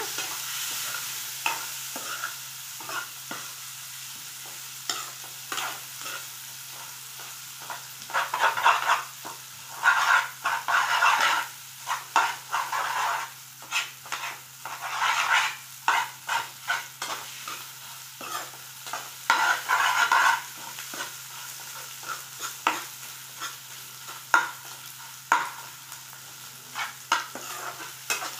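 Steel spatula scraping and stirring fish roe and onions around a metal kadai, breaking up the roe as it fries, over a steady sizzle of hot oil. The scraping strokes come in irregular runs and are busiest in the middle.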